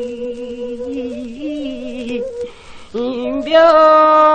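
Solo voice singing Seodo sori (northwestern Korean folk song) on an old 78 rpm gramophone recording. A long held note wavers in vibrato and breaks off about two and a half seconds in; after a short breath the voice comes back on a higher, louder held note.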